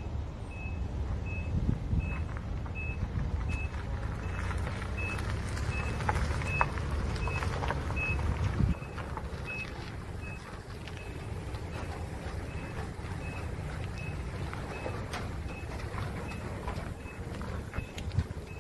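Nissan Vanette 4x4 flatbed truck's engine running at low speed as it is driven, with a high reversing beep repeating about one and a half times a second. The engine sound drops quieter about nine seconds in.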